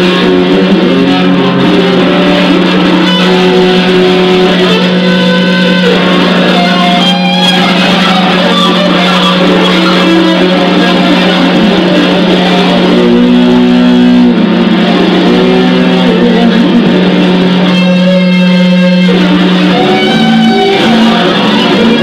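Loud free-improvised noise music on amplified prepared guitar and bass guitar: a steady low drone held under shifting pitched tones and a dense wash of noise. The drone steps up in pitch near the end.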